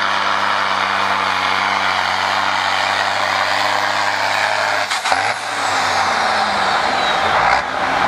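John Deere tractor's diesel engine running hard under full load while pulling a weight sled, then dropping off suddenly about five seconds in as the pull ends, with its pitch sinking and a high whistle falling away. A short hiss comes near the end.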